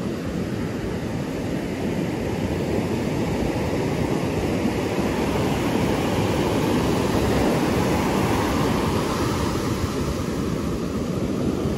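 Ocean surf breaking and washing up a sand beach in a steady rush, with wind on the microphone; the surf swells a little in the middle.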